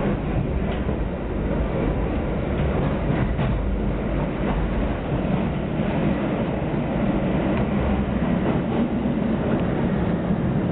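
Passenger train running steadily, heard from inside the carriage: a continuous low rumble of wheels on the track with faint scattered clicks.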